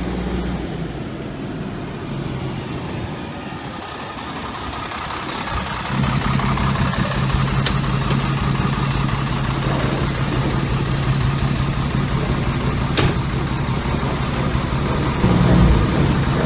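Fire engine's diesel engine running as the pumper drives slowly up and past at close range: a steady low drone that grows louder about six seconds in. A few sharp clicks come through over it.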